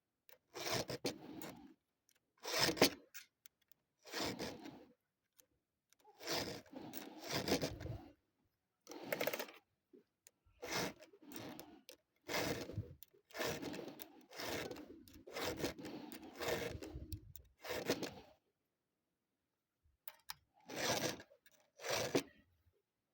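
About fifteen short, irregular scraping strokes, each under two seconds, with brief silent gaps between them.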